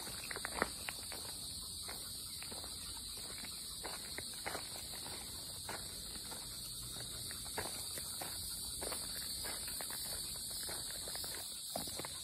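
Steady high-pitched chorus of insects shrilling in the woods, with scattered light footsteps crunching on a dirt trail, most at the start and again near the end.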